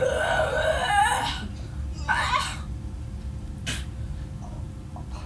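Non-word vocal noises from a person: a breathy, strained one lasting about a second at the start, then two shorter ones.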